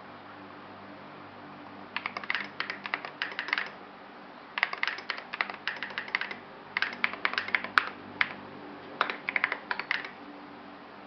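Typing on a Melody 96 mechanical keyboard with lubed Salmon switches, SA-profile keycaps and tape and PE-foam mods: four quick runs of keystroke clacks with short pauses between them. A steady low hum of home background noise lies underneath.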